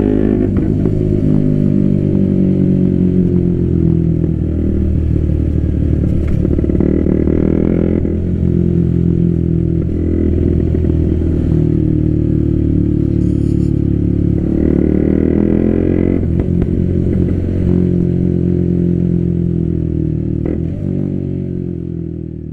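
KTM Duke 125's single-cylinder engine running through an IXIL Hyperlow exhaust while riding. Its pitch climbs and drops repeatedly with throttle and gear changes, with a few sharp exhaust pops. It fades out near the end.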